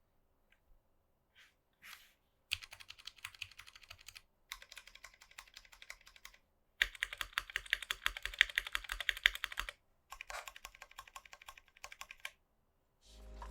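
Typing on a Tofu 60 mechanical keyboard fitted with NovelKeys Box Royal switches and PBT keycaps: a few single keystrokes, then four runs of fast typing with short pauses between them. Music begins just before the end.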